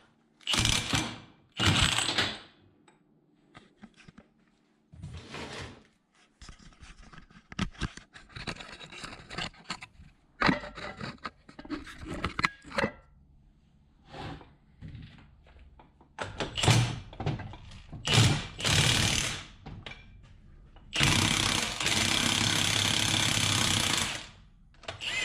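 High-torque impact wrench hammering on the yoke nut of an Atlas transfer case. It runs in several short bursts with clatter in between, then in one long burst of about three seconds near the end as it works the nut loose.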